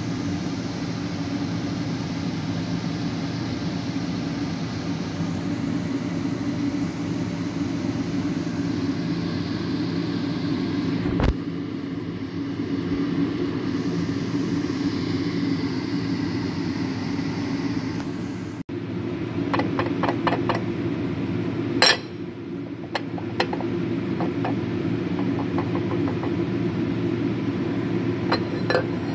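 Metalworking machine tool running with a steady hum. After an abrupt change about two-thirds of the way through, a handful of sharp metallic clinks sound over the hum.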